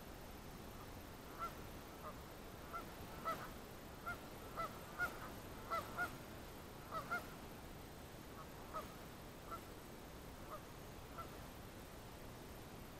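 Geese honking: a string of short honks that come thickest in the middle and thin out toward the end, over a steady hiss.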